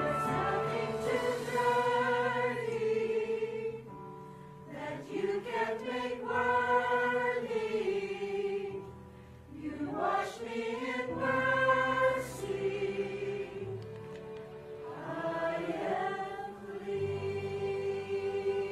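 Mixed church choir singing an Easter anthem with steady sustained instrumental accompaniment, in phrases with short breaks twice.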